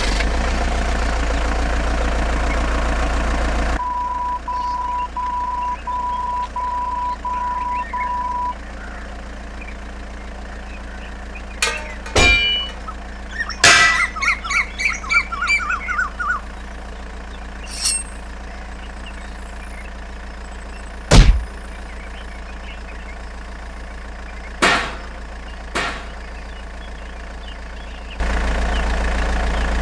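Mini tractor running with a steady mechanical drone that drops quieter about four seconds in and comes back loud near the end. Reversing beeps sound about six times soon after the drop. Scattered knocks and clattering follow, the loudest a sharp thunk about two-thirds of the way through.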